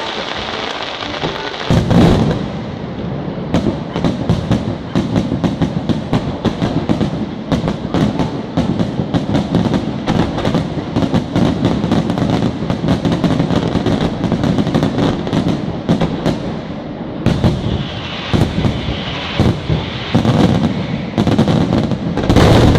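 Aerial fireworks display: shells bursting with deep booms, a big one about two seconds in and another near the end, between them a dense, fast crackling of many small sharp pops from crackling stars.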